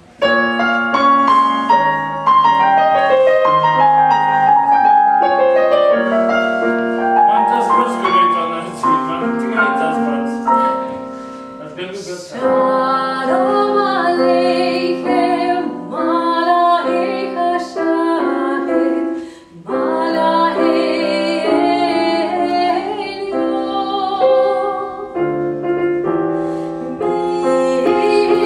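Piano playing a solo introduction for about twelve seconds, then a woman singing in a classical style with vibrato over the piano accompaniment.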